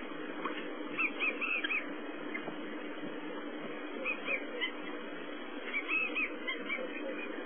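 African wild dogs twittering: short, high, bird-like chirping calls in three clusters, about a second in, around four seconds and near six seconds, over a steady low hum.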